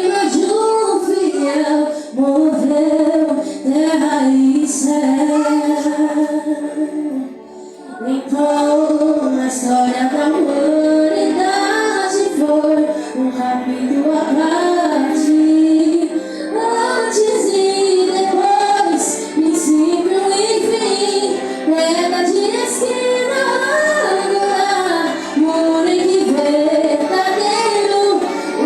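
A female voice singing a Portuguese worship song with musical accompaniment, with a brief pause between phrases about seven seconds in.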